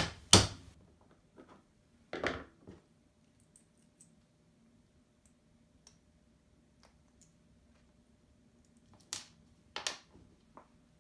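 Small hardware being handled on a workbench: sharp clicks and knocks of screws, nuts and plastic printer parts, a couple at the start, another about two seconds in and two more near the end, with faint ticks between.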